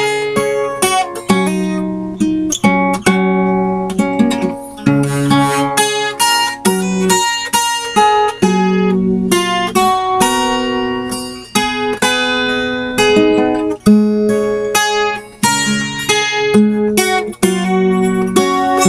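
Solo acoustic guitar playing an instrumental passage: strummed chords mixed with picked melody notes.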